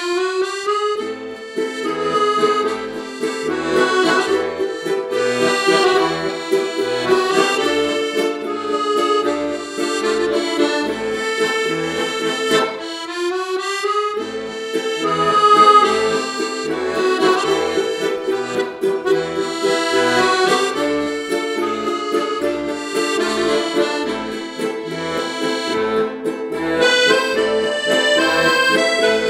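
Piano accordion playing a tune with ukulele accompaniment, the accordion melody over regular bass notes. The music opens with a rising phrase, breaks off briefly about thirteen seconds in, and resumes with another rising phrase.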